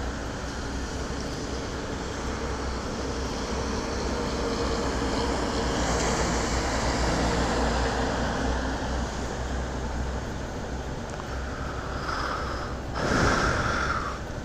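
Single-cylinder Honda CG 150 Fan motorcycle engine idling at a standstill, a steady low hum under a wash of wet-road and wind noise. Near the end a louder whoosh rises and falls away.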